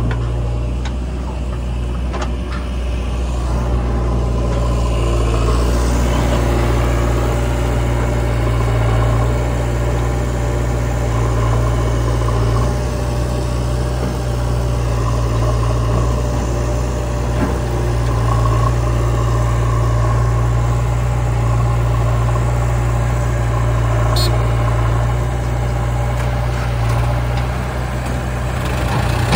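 Diesel engines of a JCB 3DX backhoe loader and a Sonalika tractor idling steadily.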